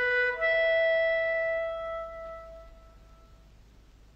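Film score: a solo woodwind holds a note, steps up to a higher note about half a second in, and fades out by about three seconds in.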